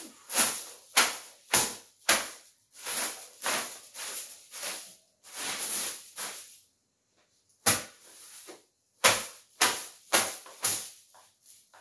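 A hand broom swept across a bedsheet in quick, repeated swishing strokes, about two a second, with a short pause a little past the middle.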